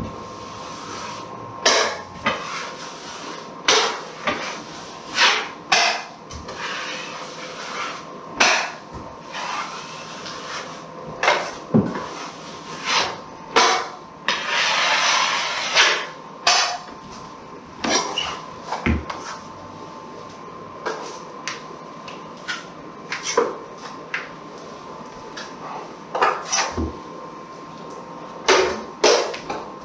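Drywall knife clicking and scraping against a metal mud pan and across a drywall seam as joint compound is loaded and spread: an irregular string of short, sharp scrapes and taps, with one longer scrape about halfway through. A faint steady hum runs underneath.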